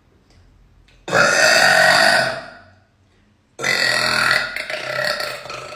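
A girl burping loudly twice. The first long burp comes about a second in, and the second, a little over two seconds later, trails off slowly.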